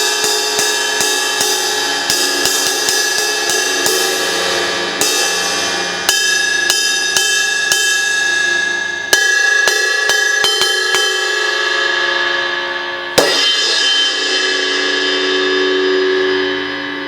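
Wuhan 14-inch crash cymbal struck over and over with a stick, in runs of two to three hits a second, its wash ringing on between hits. About thirteen seconds in, one harder crash is left to ring out and slowly fade.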